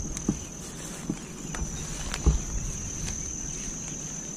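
Steady high-pitched trill of crickets in tall grass, with a few low footfall thumps as someone walks through the grass, the loudest about two seconds in.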